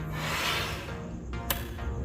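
Background music, with a hissing swell through the first second and a single sharp click about a second and a half in.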